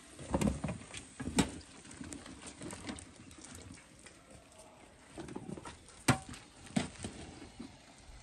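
Scattered clinks and knocks of spoons and cookware against a pan and plates, irregular, with a few sharper knocks about a second and a half in and around six and seven seconds.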